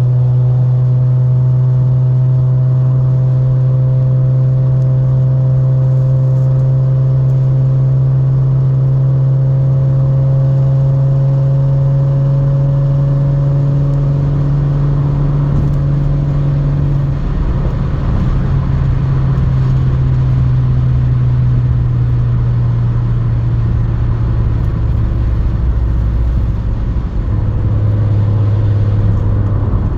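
Straight-piped Audi S4 exhaust droning loudly at a steady pitch that creeps slowly upward. About halfway through the note breaks up into a rougher, lower rumble. A steady drone returns near the end.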